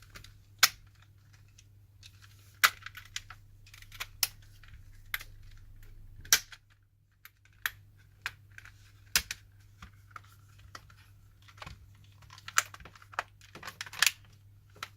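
Irregular sharp plastic clicks and snaps from a PS4 controller's shell and parts being handled and pressed together, a few louder than the rest, over a faint steady low hum.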